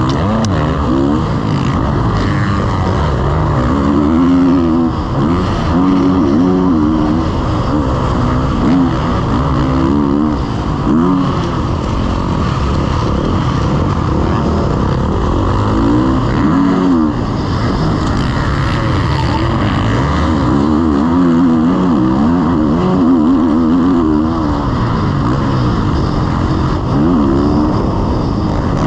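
Motocross bike engine heard from an onboard camera, its revs rising and falling over and over as the rider accelerates, over steady wind noise on the microphone.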